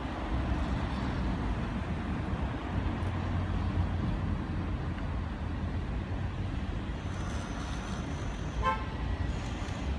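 Steady outdoor background noise with a low hum, like distant traffic, and one brief high toot near the end.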